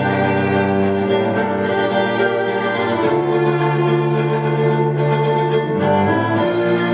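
Bowed string instruments, violin and cello, playing a slow melody in long held notes that change every second or two.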